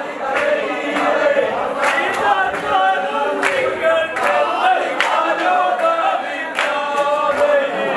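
A group of men singing vanchipattu, the Kerala boat song, together in chorus, with sharp beats roughly once a second.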